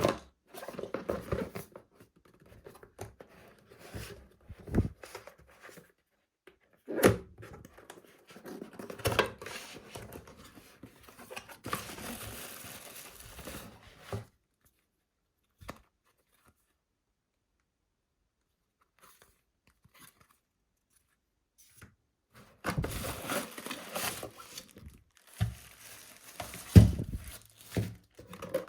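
Hands handling packaging: tearing and crinkling with scattered knocks, in irregular bursts, broken by a long quiet gap about halfway through.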